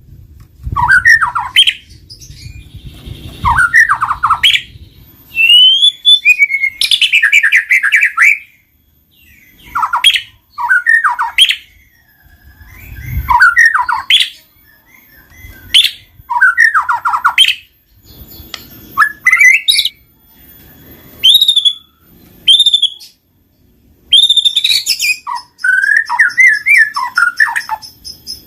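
White-rumped shama singing: loud, varied phrases of sweeping whistles and quick runs of notes, each a second or so long, with short pauses between them.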